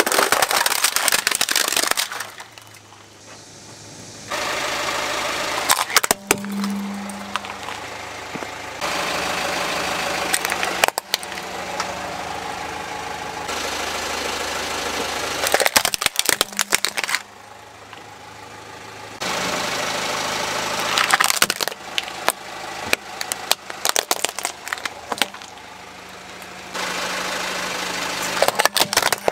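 Plastic toy vehicles cracking and crunching as a car tyre rolls over them: several separate bursts of snapping plastic, one crush after another.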